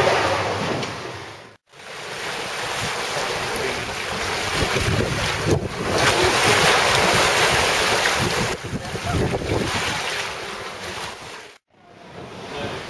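Turbulent water rushing and churning where the pumping station's outflow pours into a brick channel: a steady, dense rush of water.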